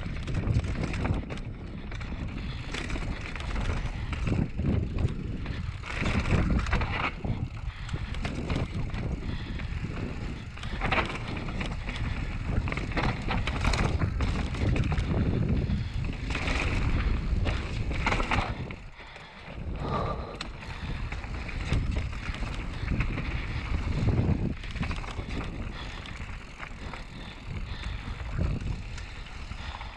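Mountain bike descending a dirt forest singletrack: a steady rush of tyre noise and wind on the microphone, broken by short rattles and knocks as the bike goes over roots and bumps, with a brief quieter moment about two-thirds of the way through.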